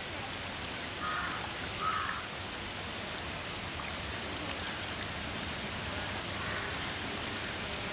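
Steady, even rushing hiss of water in a swimming pool, with two faint brief sounds about one and two seconds in.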